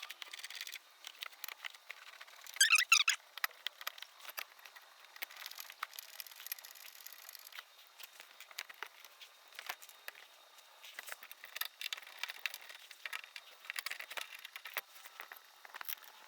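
A plastic engine undercarriage cover being handled and fitted back under a car, with scattered clicks, taps and rattles of the panel and its fasteners. About three seconds in there is a brief, louder scrape.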